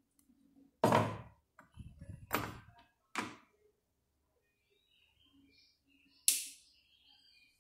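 Four sharp knocks, each dying away quickly: the first about a second in, two more close together a second or two later, and a loud one near the end.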